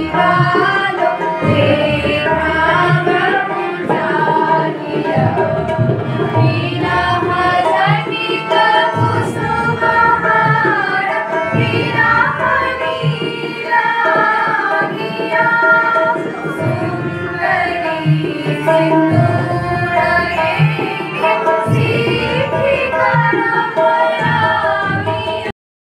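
A group of women singing a song together through microphones, accompanied by tabla. The sound drops out for a split second near the end.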